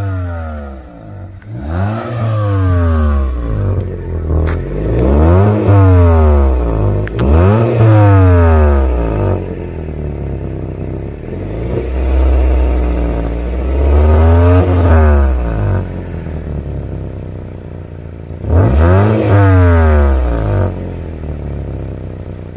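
Hyundai Grand i10 engine revved about six times, rising and falling between stretches of idle, its exhaust loud like a sports car because the silencer pipe has rusted through and come fully apart at the joint.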